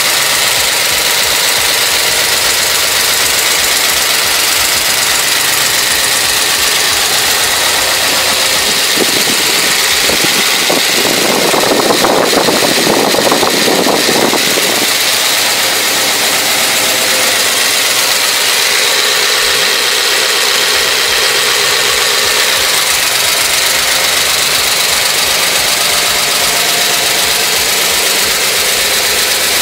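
Newly rebuilt 383 Mopar big-block V8 idling steadily on an engine stand, with a brief louder stretch about twelve seconds in. The owner hears a couple of valves that don't sound right and plans to recheck the valve adjustment.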